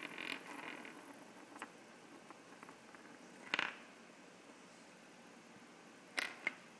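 Small wooden spinning tops on a plywood board: a faint rhythmic rattle dies away in the first second, a single sharp wooden click about three and a half seconds in, and two quick clicks near the end as a top is picked up by hand.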